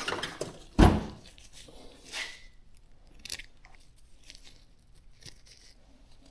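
Handling noises: a single heavy thump about a second in, followed by brief rustling and scattered small clicks as parts are handled.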